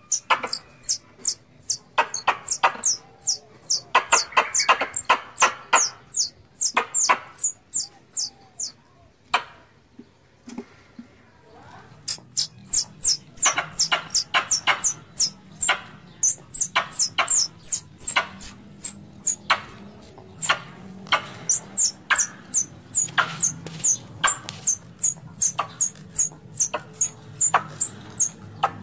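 Plantain squirrels (bajing kelapa) calling in a rapid run of sharp chirps, each a quick downward sweep, about three or four a second, with a pause of about three seconds near the middle. This is the squirrel's in-heat mating call, the sound used as a lure to call squirrels.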